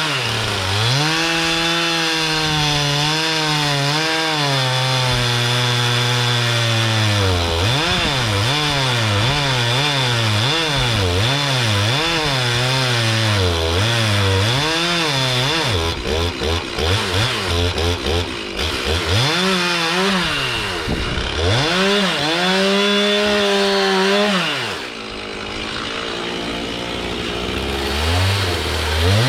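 Two-stroke chainsaw cutting magnolia wood, its engine pitch rising and falling over and over as it bogs in the cut and revs free. It drops back briefly near the end, then revs up again.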